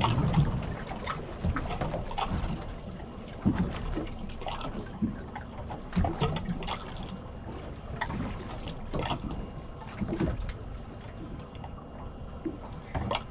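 Water lapping and sloshing against a boat's hull, with scattered light knocks and clicks.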